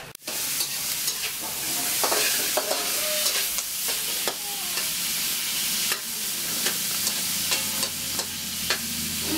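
Chopped meat sizzling as it fries in a metal wok on a gas burner, a steady hiss. A metal spoon scrapes and clinks against the pan many times as the meat is stirred.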